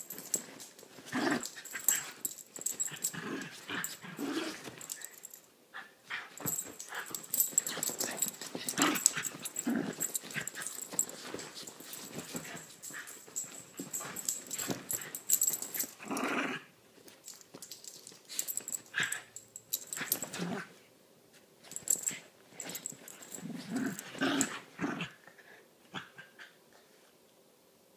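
A small Chiweenie and a rat terrier/Chihuahua mix play-fighting, with play growls and the scuffle of paws and bodies on bedding coming in irregular bursts.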